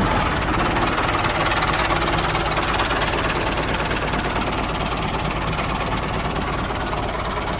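Mini tractor's small engine running steadily with a fast, even knocking rattle.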